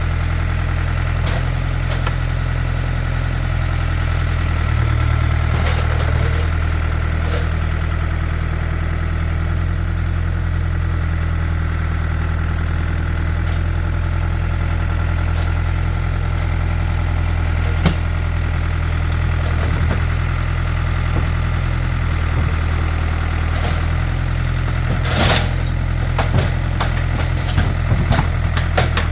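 Farm tractor's diesel engine running steadily at a low, even speed. About two-thirds of the way through comes a single sharp crack, and near the end a cluster of sharp clicks and crunches.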